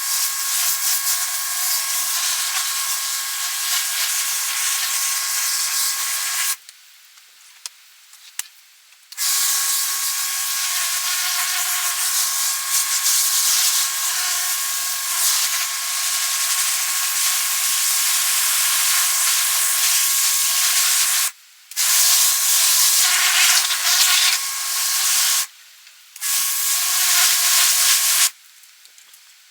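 Pressure washer spraying with a steady hiss over the whine of its motor. It cuts off abruptly and starts again several times as the trigger is released and pulled.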